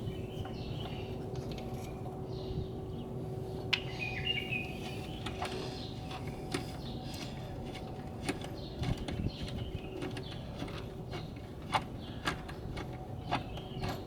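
Scattered light metallic clicks and taps of a hand tool working a bolt loose on a car's throttle body mounting, over a faint steady hum.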